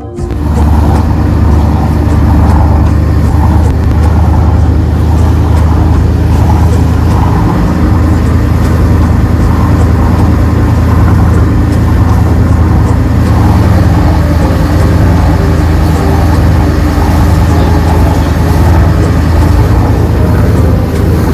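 Dive boat's engine running steadily, a loud low drone.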